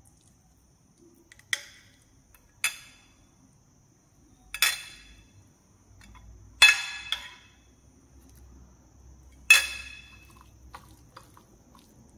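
Serving spoon clinking against glass dishes while fish and curry are spooned from a bowl onto a plate of rice. There are six sharp clinks, each ringing briefly, with the loudest in the second half, and a few light ticks near the end.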